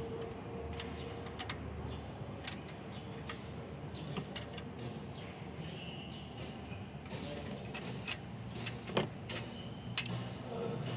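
Small metal hand tools clicking and clinking against the rocker arms and valve-clearance adjuster screws and lock nuts of a Mitsubishi 4N15 engine's open cylinder head: scattered light ticks over a steady low hum, with a louder knock about nine seconds in and another a second later.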